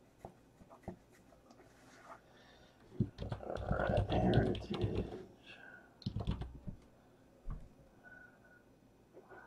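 Scattered light clicks and taps, like typing on a computer keyboard, with a louder jumble of handling noise about three to five seconds in.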